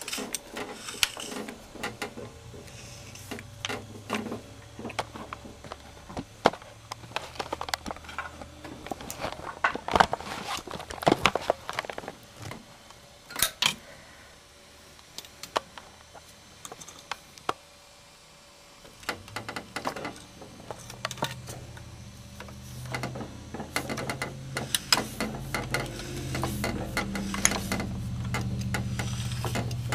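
A 1973 Seeburg jukebox's record-changing mechanism being worked through its cycle by hand: scattered metallic clicks and clunks from its cams, gears and linkages. A low hum runs beneath it and grows louder in the second half.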